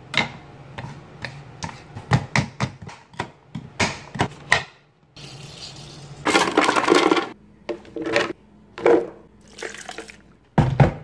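Kitchen knife chopping on a plastic cutting board: a run of sharp chops, about three a second, for the first four seconds or so. About six seconds in comes a dense burst of noise lasting about a second, followed by a couple of shorter noises, as fruit is juiced and loaded into a blender.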